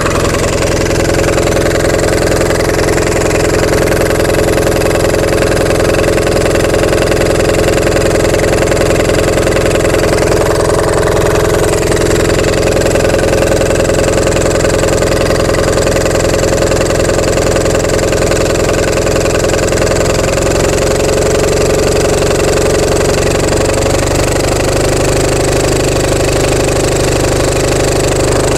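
Onan MDJE two-cylinder diesel generator set running steadily at about its rated speed for 60 hertz output. Its note shifts slightly about 20 seconds in.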